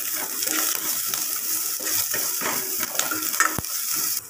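Shallots, green chillies and curry leaves sizzling in hot oil in a metal pan while a metal spoon stirs and scrapes them, with a sharp clink of the spoon against the pan about three and a half seconds in. The sizzling cuts off abruptly near the end.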